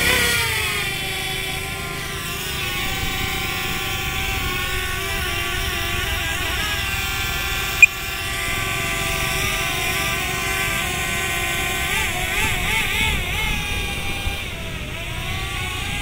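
DJI Mavic Air quadcopter's propellers whining as it hovers and manoeuvres close by, the pitch falling at the start and wavering as the motors adjust. A sharp click sounds about eight seconds in.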